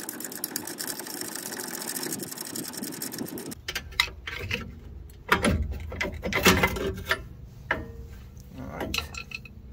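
Socket ratchet clicking rapidly as a 19 mm rear brake caliper bracket bolt is spun out. It stops about three and a half seconds in, and loose metal clanks and knocks follow as the caliper and bracket are pulled off the disc rotor.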